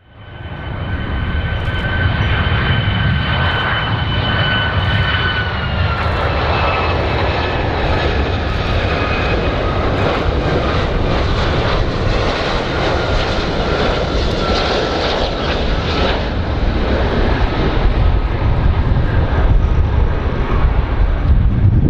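An airplane's engines running: a steady rushing noise with a high whine that drops in pitch about five seconds in, then keeps sinking slowly.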